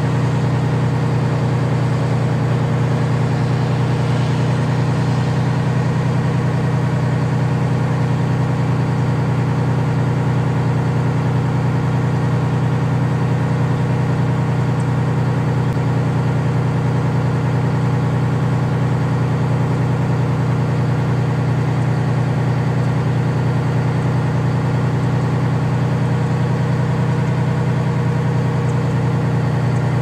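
A vehicle engine running steadily at constant speed: a loud, even low hum that does not change in pitch or loudness.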